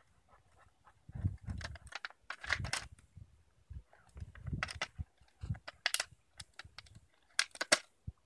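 A large dog chewing a red plastic Solo cup: the plastic crackles and crunches in irregular bursts, with dull thumps underneath.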